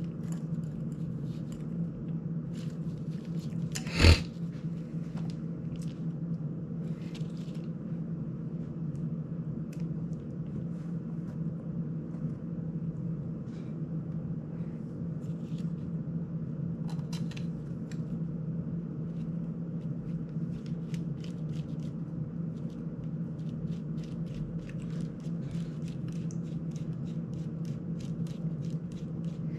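Small clicks and taps of hand tools and parts being worked on a GEPRC CineLog 35 FPV drone, with one louder knock about four seconds in and a denser run of quick ticks near the end, over a steady low hum.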